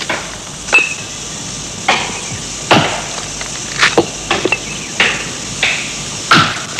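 Axe blows chopping into a tree trunk, about one stroke a second, a few of them in quick pairs, over a steady hiss of insects.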